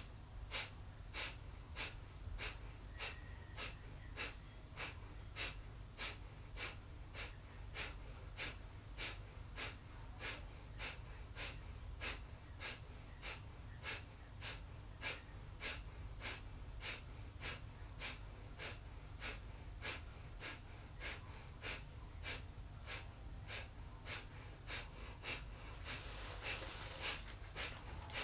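A person doing kapalabhati-style breathing: short, forceful exhales through the nose, each made by pulling the belly in, with the inhale left passive. The exhales come as a steady rhythm of sharp puffs, about two a second.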